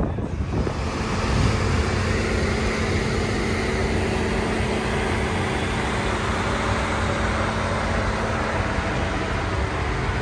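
Steady motor-vehicle noise, engines and traffic running with a low, even hum.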